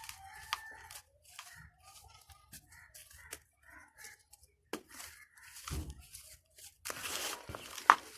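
Dry red dirt balls crumbling and crunching, scattered small crackles at first. Near the end comes a denser, louder run of crumbling with one sharp crack.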